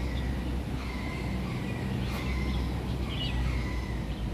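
Steady low outdoor rumble with a few faint, short high-pitched chirps from small animals or birds.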